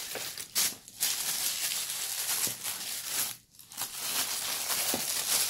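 Plastic wrapping and tissue paper crinkling and rustling as a pair of shoes is unwrapped by hand, with two brief pauses, just before a second in and around the middle.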